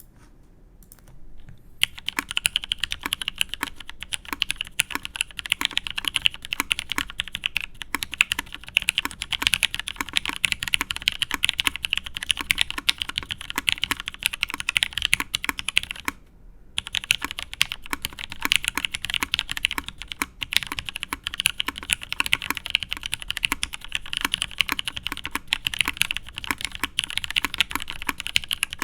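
Continuous typing on a Matrix 8xv2.0 mechanical keyboard with Krytox-lubed Cherry Nixie switches in an aluminium plate and Cherry G81-3116 doubleshot keycaps: a rapid stream of keystroke clacks that starts about two seconds in, with a brief pause a little past halfway.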